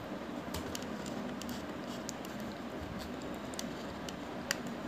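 A few scattered sharp clicks from a computer mouse being clicked and scrolled, over a steady background hiss.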